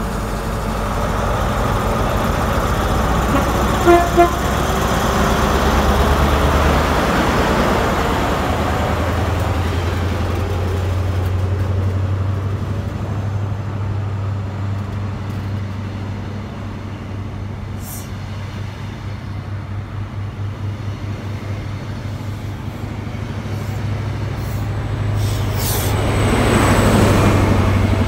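High Speed Train measurement train with class 43 diesel power cars moving off past the platform: two short horn toots about four seconds in, then a steady low diesel engine hum with the sound of the coaches rolling by. The sound swells near the end as the second power car comes alongside.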